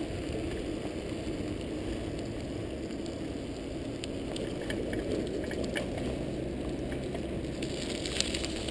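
Bicycle riding along a wet road: a steady low rush of tyres on wet pavement and air moving past. Scattered light ticks come in from about halfway, more of them near the end.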